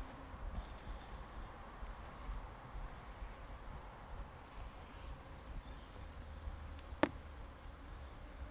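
Quiet forest ambience with a low rumble and small irregular knocks, a faint high trill a little after six seconds in, and a single sharp click about seven seconds in.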